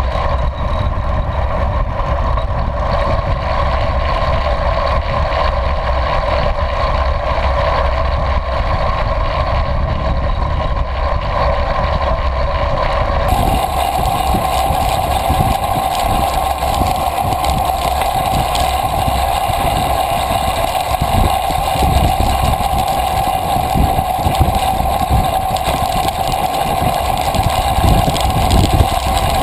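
Steady rush of wind and tyre noise from a recumbent trike rolling fast on asphalt, heard on a camera riding on the trike, with a constant hum underneath. The sound changes character suddenly about halfway through.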